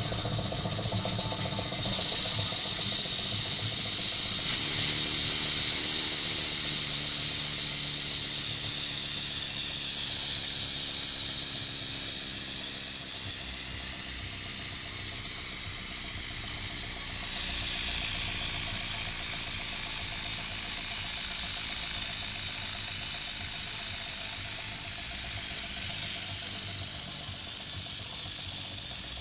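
Stuart 10V single-cylinder model steam engine running on compressed air: a loud, steady hiss of air through the engine, growing louder about two seconds in and easing off slowly near the end, with the engine's mechanical running underneath.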